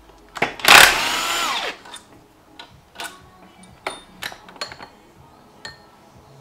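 Cordless drill with a socket extension spinning a bolt on an engine's auxiliary pulley for about a second, its motor whine falling in pitch as it slows, followed by light clicks and knocks of metal parts.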